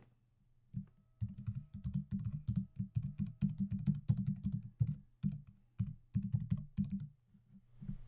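Typing on a computer keyboard: a quick, uneven run of key clicks starting about a second in, with a short pause near the end.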